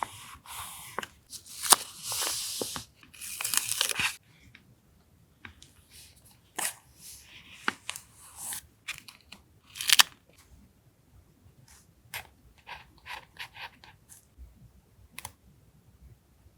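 Paper being handled for a collage journal page: a dense stretch of crinkling and tearing paper in the first few seconds, then scattered light rustles, taps and clicks.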